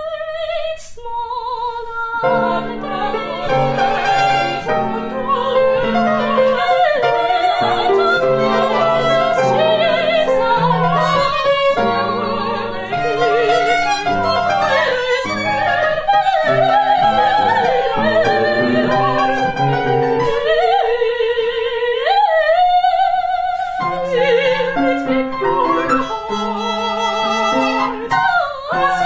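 Operatic soprano singing with wide vibrato, accompanied by a chamber ensemble of piano, violin and cello. The voice is alone for the first two seconds before the instruments come in.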